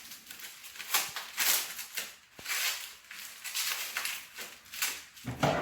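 Packaging rustling and crinkling in repeated short bursts as a wrapped item is handled and unwrapped.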